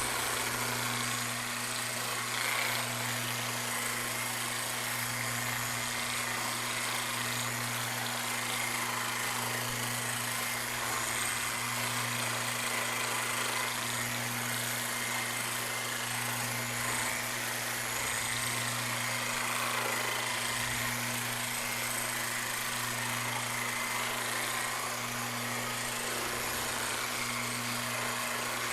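Electric massage tool running on the body with a steady low hum that swells and fades in a slow, regular pulse.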